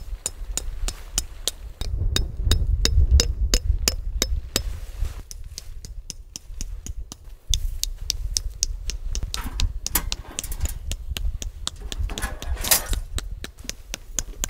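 A quick, even run of sharp knocks or clicks, about three a second, over a low rumble.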